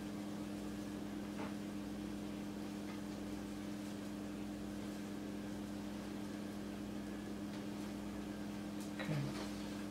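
A steady low electrical hum with two even tones, with a few faint light clicks and a brief louder click about nine seconds in.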